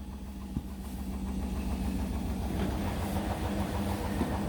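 Indesit front-loading washing machine spinning on its final spin with a load of towels badly out of balance: a steady motor hum over a low rumble, growing slowly louder as the spin builds and the machine shakes.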